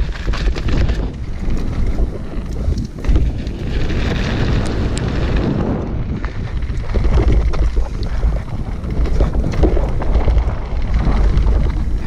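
Mountain bike ride downhill on a dirt and gravel singletrail: wind buffeting the action camera's microphone over tyres rolling on dirt and loose stones, with clicks and rattles from the bike, most in the first couple of seconds.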